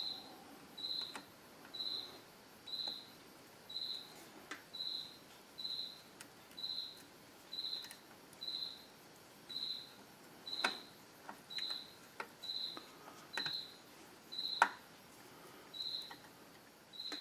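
A cricket chirping, one short high chirp about once a second, with a few sharp clicks from a screwdriver working a screw on an outboard motor's lower unit; the loudest click comes near the end.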